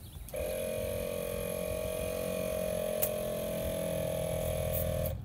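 ARB single air compressor starts about a third of a second in and runs with a steady pitched hum while it inflates a mountain bike tyre through a coiled air hose, then cuts off abruptly near the end. A single sharp click falls about three seconds in.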